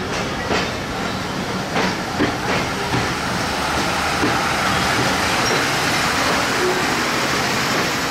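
Bangladesh Railway passenger coaches rolling past on the track, wheels clicking over rail joints a few times in the first three seconds, then a steady rushing hiss from the running gear.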